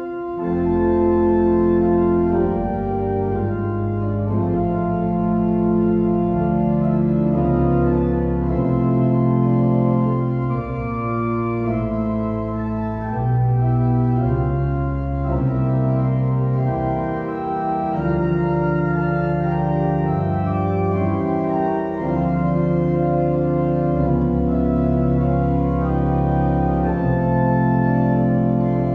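Church organ playing slow, held chords over deep bass notes, with short breaks between phrases.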